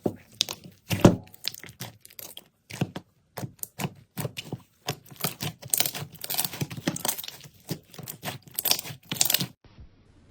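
Slime being squeezed and pressed by hand, giving many quick crackles and pops, which stop suddenly near the end.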